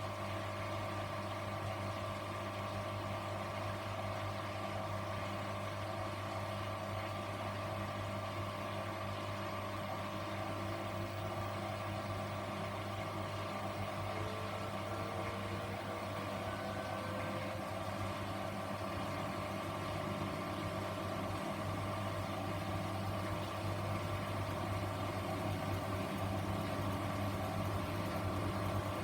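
Grundig washing machine running, its motor giving a steady low hum, with a faint rising whine about halfway through and the sound growing slightly louder near the end.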